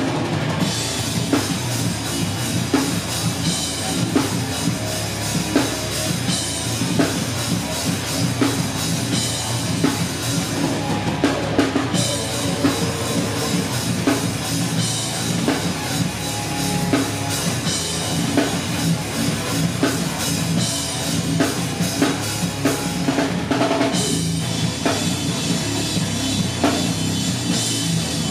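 Live band playing loud rock music, heard through the room, with the drum kit beating hard and steady. The high cymbal wash drops out for about a second near the middle and again near the end.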